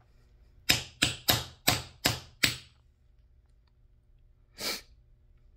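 Six sharp taps of a metal hammer in quick succession, about three a second, pressing a part into a Bang22 airsoft grenade timer head. A short rustle follows about two seconds later.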